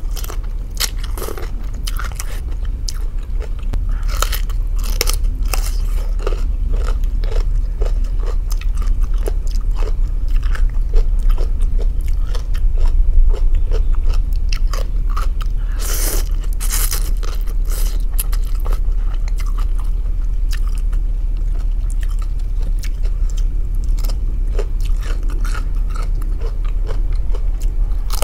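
A person chewing and biting into rice noodles and crisp raw cabbage, with irregular crunches throughout and a louder cluster about two-thirds of the way through. A steady low hum runs underneath.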